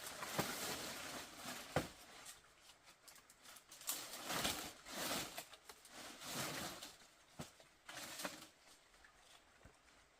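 Irregular rustling and scraping with scattered sharp clicks and knocks, the loudest knocks near the start and about two seconds in, fading quieter near the end.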